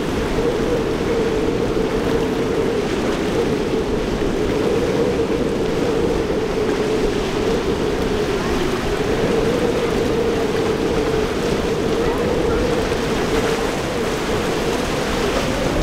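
Waves and wind buffeting the microphone, with a boat motor droning steadily through the inlet.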